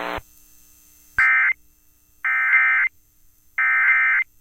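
Emergency Alert System SAME digital data bursts: three short, buzzy, rasping bursts of modem-like tone, a second or so apart. They are the coded data that brackets a broadcast alert message. A steady buzzing tone cuts off right at the start.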